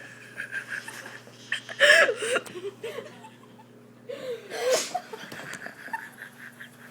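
People laughing in two main bursts, about two seconds in and again after four seconds, with smaller breathy laughs between them.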